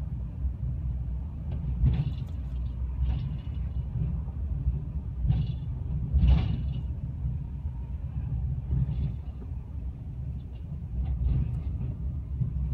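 Low road rumble inside a car's cabin as it is towed behind a recovery truck, broken by several short clunks and rattles, the loudest a little after two seconds in and about six seconds in.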